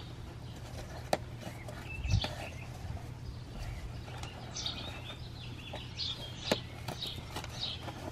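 Small birds chirping repeatedly, more often in the second half, while a cardboard box's flaps are pulled open, with a few sharp snaps of the cardboard. A steady low hum runs underneath.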